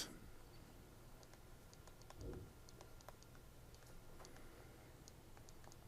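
Near silence with faint, scattered light clicks of a stylus tapping on a tablet screen while writing.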